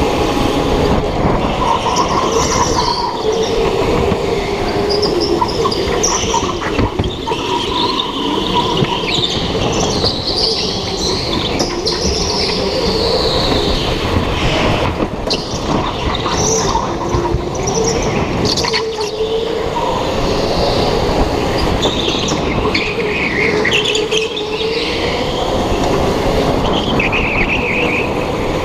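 On-board sound of a go-kart being driven hard: a continuous motor note that wavers in pitch with throttle, with high tyre squeals coming and going through the corners.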